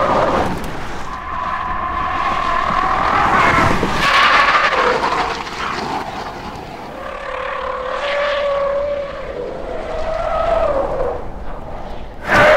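Quad-motor Rivian R1T electric pickup driven hard: the electric motors whine, rising and falling in pitch as it speeds up and slows, over tyre noise as it slides through a curve. A sudden loud burst near the end.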